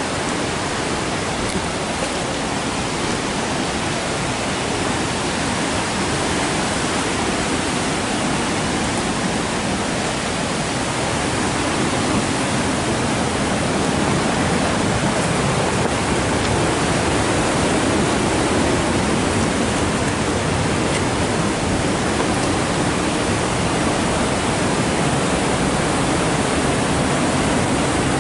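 Steady rushing of a fast-flowing river, an even wash of noise that grows a little louder about halfway through.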